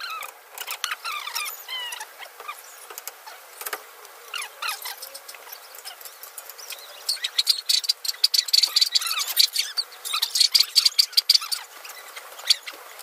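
Ratchet wrench clicking rapidly in runs from about seven to eleven and a half seconds in, turning a nut at the front steering knuckle. Scattered high squeaks and light metal taps come before it.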